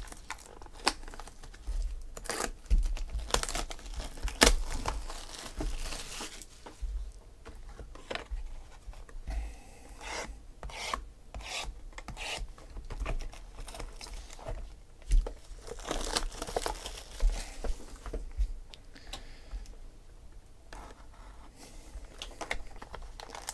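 Plastic shrink wrap being torn and crinkled off a sealed cardboard box of trading cards, then the box's cardboard being scraped and slit open, with irregular scratchy rubbing and crackling throughout.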